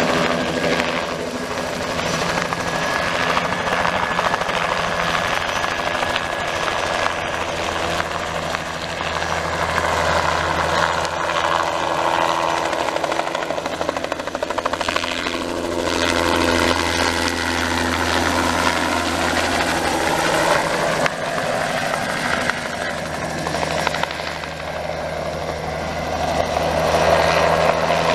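Crop-spraying helicopter flying low over the field, its rotor and engine sound steady, the pitch bending as it passes close and growing louder near the end.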